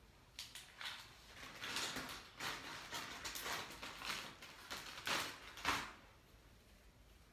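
Hands rustling through hair as perm rods are pulled out and the set curls are loosened: a run of short rustles and scrapes, the last two loudest, dying down near the end.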